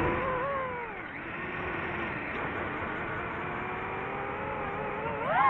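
FPV drone's electric motors whining with the throttle. The pitch drops about a second in, holds low and steady, then rises sharply near the end as the throttle is opened.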